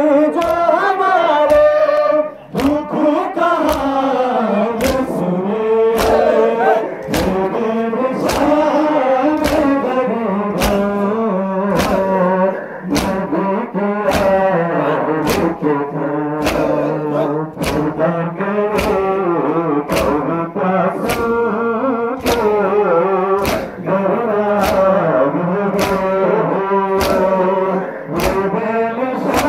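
Men chanting a Muharram noha lament together. Sharp chest-beating slaps (matam) land in unison about once a second, in time with the chant.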